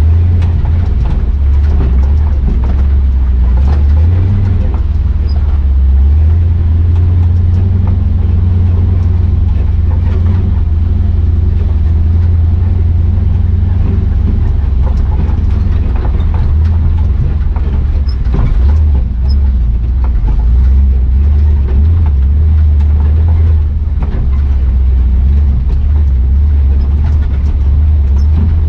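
Square-body Chevy 4x4's swapped-in 6.0 L Vortec V8 running as the truck drives, a loud, steady low rumble that rises and falls a little, with scattered knocks and rattles.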